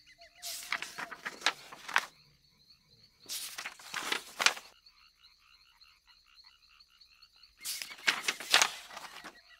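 Book pages turned three times, each a rustling paper flip of a second or so, over a steady, fast-pulsing chirr of a night chorus.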